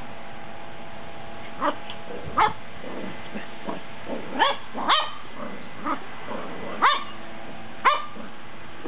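Cockalier puppy (cocker spaniel–Cavalier King Charles spaniel cross) giving a string of short, high yips and barks, about six sharp ones spaced irregularly with a few softer ones between.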